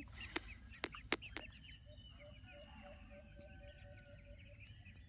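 Steady high-pitched insect drone of crickets, with faint repeated bird or chicken chirps in the middle and a few sharp clicks in the first second and a half.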